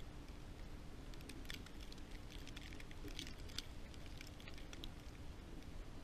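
Blizzard wind rumbling on the microphone of a camera set in the snow, with scattered light ticks and crackles.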